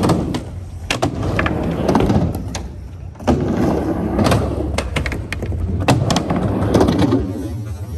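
Skateboard riding a quarter-pipe ramp: the wheels keep up a rumble, and the trucks and deck hit the metal coping and ramp surface with sharp clacks several times.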